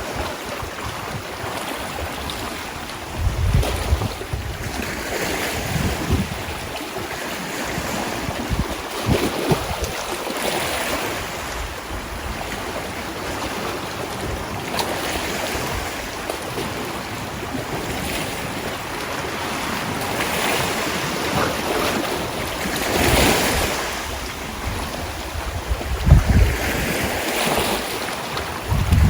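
Sea waves washing in, swelling and easing every few seconds, with wind gusting on the microphone in a few short low buffets.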